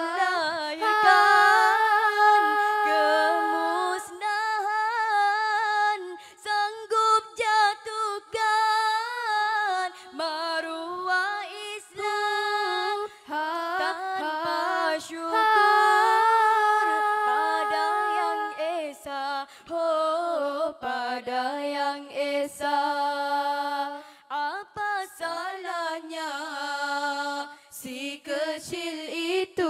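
Female nasyid group of five singing a cappella in close harmony, long held chords and sliding vocal lines with no instruments.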